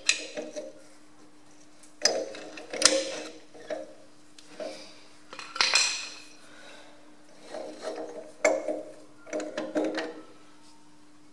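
Metal parts clinking and knocking in several short, irregular clusters as a painted link bracket is worked into place on a Ferguson FE35 tractor's draft control assembly, over a steady low hum.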